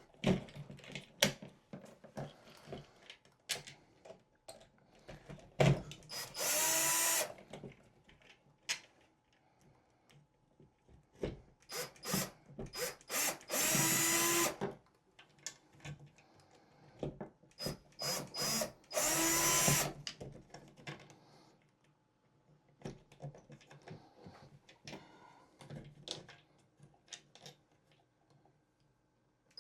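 Cordless drill/driver driving screws, running in short spurts of about a second, three longer ones with a steady whine, amid clicks and knocks of handling.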